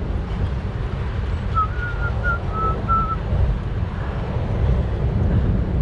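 A steady low rumble, with a quick run of five short whistle-like notes, each a slightly different pitch, a couple of seconds in.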